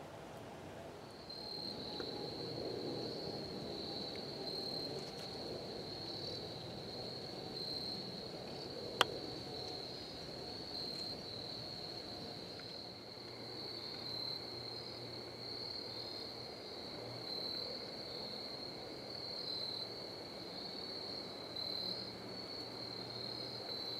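Crickets chirring steadily in a high, pulsing trill that starts about a second in, with a fainter, lower-pitched song joining about halfway through. A single sharp click is heard about nine seconds in.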